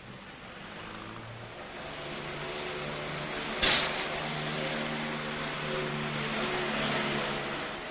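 Street traffic: a motor vehicle's engine running steadily and growing louder, with one short, sharp burst of noise about three and a half seconds in.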